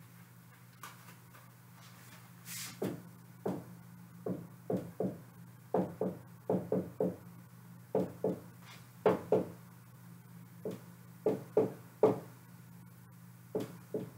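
Dry-erase marker tapping and scratching on a whiteboard as an equation is written out: a string of short, sharp, uneven strokes that starts a couple of seconds in. A steady low hum runs underneath.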